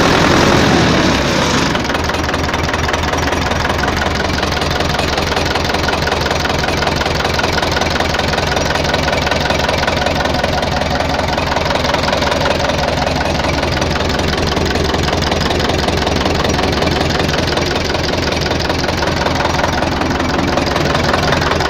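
Tractor diesel engine running, loud and dropping at first, then settling into a steady idle about two seconds in. The engine has just been rebuilt with a new piston group, new connecting-rod bushings and a new cylinder head, and the knock it had seems to have stopped.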